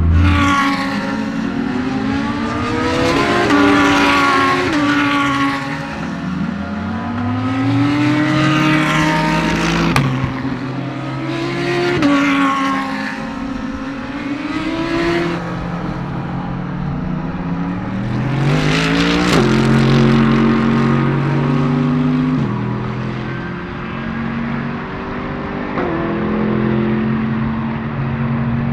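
GT3 race cars accelerating hard through the gears, the engine note climbing and dropping back with each upshift. Several cars pass close by one after another.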